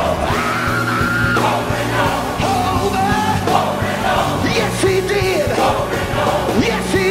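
Live gospel praise music: a male lead singer sings into a microphone over a group of backing singers, with a band holding steady low notes under a regular beat.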